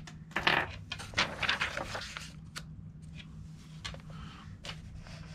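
Pages of a 1930s paper magazine being turned by hand: paper rustling and crinkling over the first two seconds or so, with a few light clicks of handling, then softer rustles.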